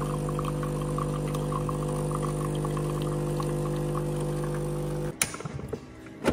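Automatic coffee machine's pump humming steadily while coffee pours from its twin spout into a mug. The hum cuts off suddenly about five seconds in, followed by a click and then a sharper knock near the end as the mug is taken off the drip tray.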